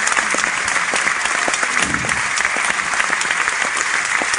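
Audience applauding: many hands clapping densely and steadily, with no break.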